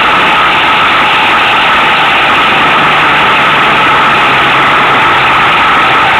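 Loud, steady engine and road noise heard from on board a moving vehicle. A low engine hum stands out for a few seconds in the middle.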